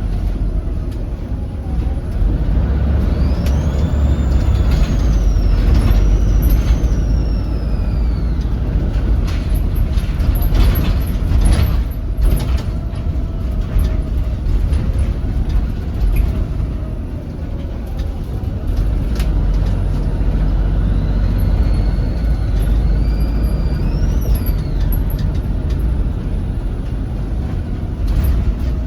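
Volvo B7RLE bus's six-cylinder turbo-diesel engine running under load with a heavy low rumble, its turbocharger whistling in rising and falling glides twice as it spools up and down. A spell of clattering comes in the middle.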